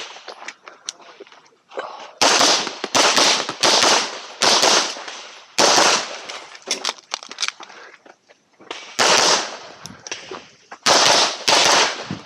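Handgun shots fired in quick pairs during an IPSC course of fire, a pause of a second or more between groups. Firing starts about two seconds in.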